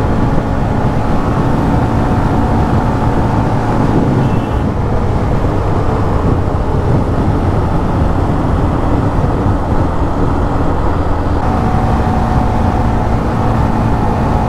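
Hero Xtreme 125R's 125 cc single-cylinder engine running steadily while riding, with road and wind noise.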